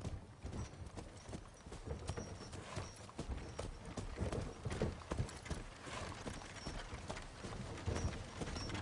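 Hooves of a single horse clip-clopping at a walk on a dirt track as it draws a wooden cart, an irregular run of knocks over a low rumble.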